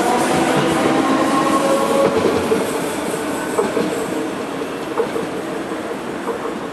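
Siemens Desiro ET425M electric multiple unit pulling away, its traction drive whining with several steady tones and getting fainter as it moves off, with a few sharp clicks from the wheels on the rails.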